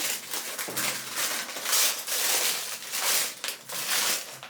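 Plastic packaging crinkling and rustling in irregular bursts as a bag of whiskey barrel wood smoking chips is handled.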